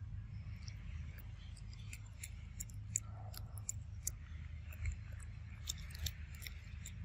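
Irregular small crisp clicks and crunches of a macaque chewing food, over a steady low rumble.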